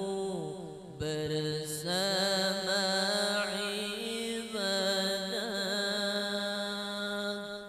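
A man's voice singing an Arabic qasidah, a slow, ornamented melody with long held notes. It breaks off briefly about a second in and again around the middle, and fades near the end.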